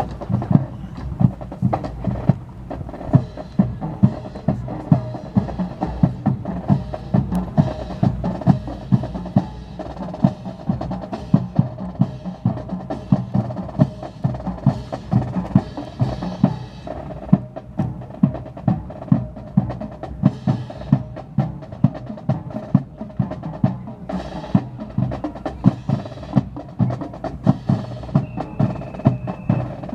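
Snare and bass drums playing a steady marching cadence, sharp strokes at roughly two a second, with rolls in between.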